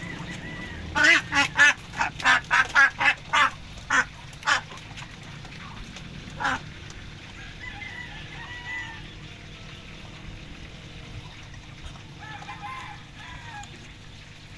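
Domestic fowl calling: a quick run of about a dozen loud, sharp calls at roughly three a second, one more call a couple of seconds later, then fainter, longer wavering calls near the middle and again near the end.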